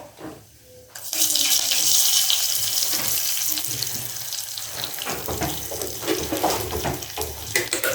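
Water running from a kitchen tap. It starts suddenly about a second in and slowly grows quieter.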